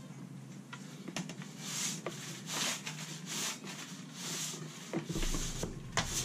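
Long-handled scrub brush scrubbing the oily bottom of a boat's bilge: a run of swishing strokes, roughly one a second, with a few sharp knocks.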